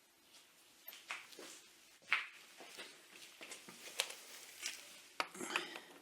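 Light metal clinks, taps and knocks of a newly turned steel bottom bracket tool being handled and fitted onto a bicycle's splined bottom bracket nut. The sharpest knock comes about two seconds in, with a small flurry of rattles near the end.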